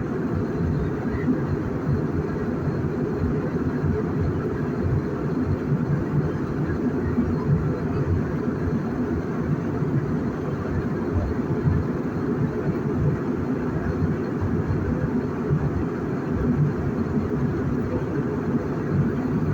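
Steady low rumble of an airliner heard from inside the passenger cabin: engine and airflow noise.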